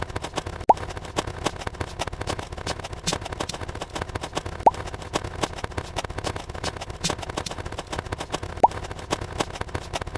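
Edited sound effects: three short pitched blips, about four seconds apart, over a steady dense crackle of clicks.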